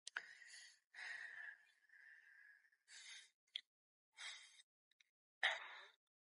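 A man breathing hard through a set of seated dumbbell curls: about six short, sharp exhalations, roughly one a second, one with each lift.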